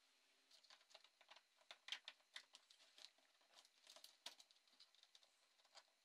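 Faint, irregular clicking and rustling of hands handling the 3D-printed plastic fan case and its cables.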